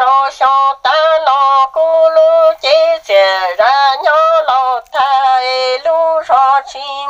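A solo voice chanting a Hmong kwv txhiaj, a sad sung poem, with no accompaniment. It moves in short held syllables, several a second, with a wavering vibrato on the longer notes.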